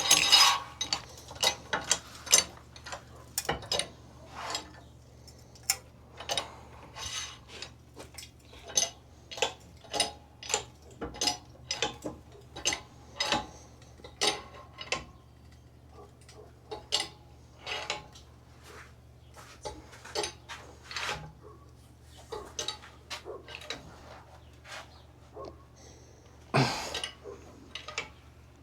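Loose metal parts and tools clinking and clanking as they are handled and knocked together, in many short irregular knocks, with one louder clank near the end.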